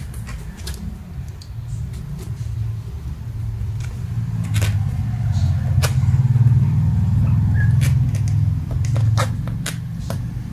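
A low rumble of unclear source that swells toward the middle and eases near the end, with scattered light scratches and taps as kittens paw and climb over a fabric pet playpen.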